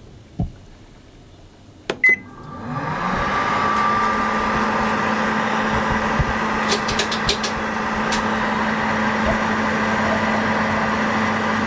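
Microwave oven being started and running: a thump, then clicks and a short keypad beep about two seconds in, after which the oven starts up with a steady hum and fan noise. A few quick ticks come in the middle.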